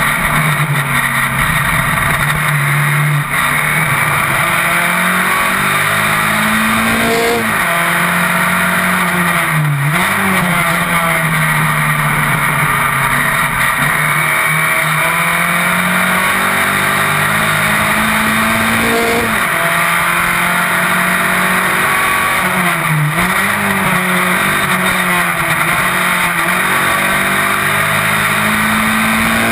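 Onboard sound of an open-wheel single-seater racing car's engine at race speed, its note climbing in steps through the gears and dropping sharply several times as the driver brakes and shifts down for corners.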